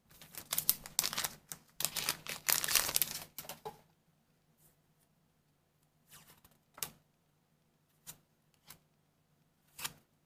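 Trading cards being handled, with about four seconds of dense rustling and sliding as cards are put down and picked up, then a few scattered light clicks and taps.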